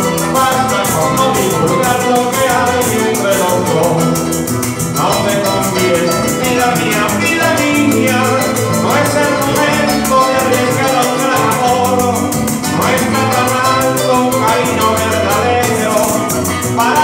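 Live Venezuelan llanera-style ensemble of harp, cuatro and maracas playing an instrumental passage, the maracas shaken in a fast, even rhythm over plucked harp and strummed strings.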